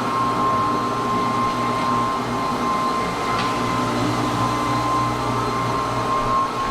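Rotary floor buffer running steadily while buffing stain into a bare fir floor, a constant motor hum with a steady high-pitched whine.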